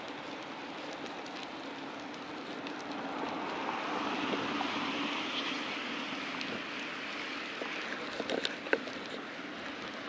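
Steady street noise heard from a moving bicycle: tyre and traffic noise that swells for a few seconds in the middle, with a few light clicks near the end.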